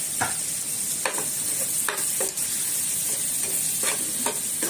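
Onions and tomatoes frying in oil in a non-stick pan with a steady sizzle, while a spatula scrapes and stirs freshly added turmeric and chilli powder into them, about half a dozen strokes at uneven intervals.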